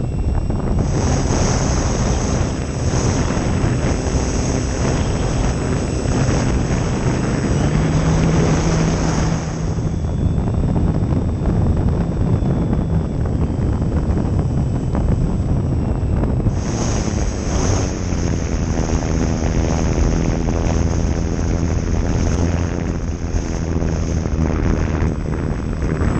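Wind buffeting a GoPro mounted on an E-flite Valiant 1.3m electric RC plane, over the steady hum of its brushless motor and propeller, whose pitch shifts as the throttle changes. A high whine runs for most of the flight but drops out for several seconds in the middle.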